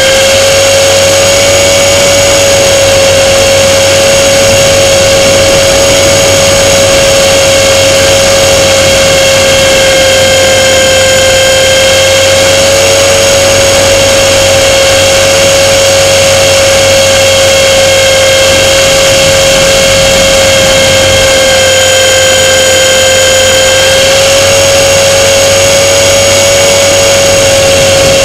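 Radio-controlled model airplane's motor and propeller whining at a steady, high pitch, very loud as heard from a camera mounted on the plane, with a rush of wind. The pitch dips and rises slightly a few times as the throttle changes.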